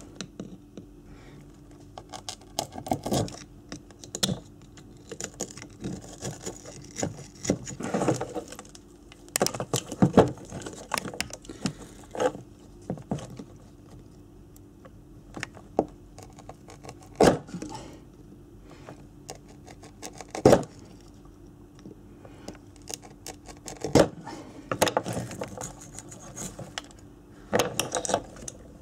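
Screwdriver hacking and picking old copper winding wire off the ignition source coils of a Honda CB250N stator: irregular scraping, scratching and clicking of metal on metal, with a few louder sharp knocks. The coils are being stripped for rewinding because the 40-year-old wire is failing.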